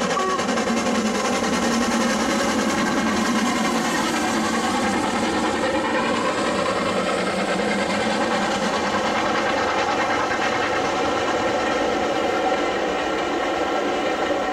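Steam train hauled by an LMS Black Five 4-6-0 locomotive running past over a stone viaduct, its coaches making a steady, unbroken running noise.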